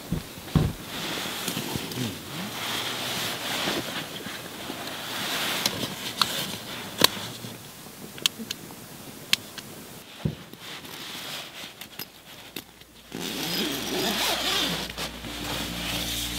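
Rustling and scraping of nylon tent and sleeping-bag fabric, with scattered sharp clicks. Soft music comes in near the end.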